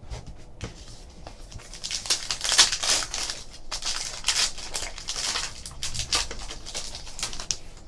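A 2014 Upper Deck Goodwin Champions trading card pack's wrapper being torn open and crinkled by hand, a run of quick crackling rustles.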